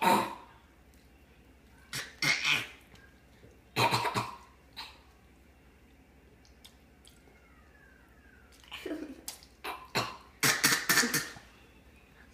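Young child making imitation coughs: short, forced coughing bursts in ones and twos, then a quicker run of several coughs near the end.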